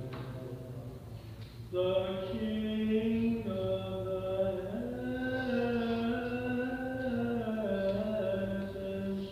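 Orthodox liturgical chant at Vespers: a voice singing a slow melody in long held notes that step up and down, growing louder about two seconds in, over a steady low held note.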